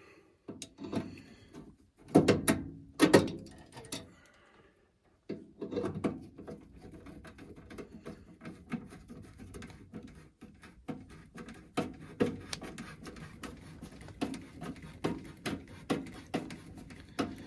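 Metal knocks and rattling from a gas furnace's burner manifold being handled and seated back in line with the burner orifices. A few loud clanks come in the first three seconds, then after a short pause a run of quick light ticks and rattles.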